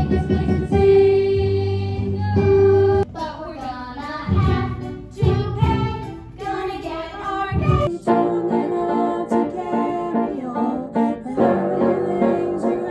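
Music with singing voices; from about eight seconds in a steady accompaniment of repeated chords carries under the singing.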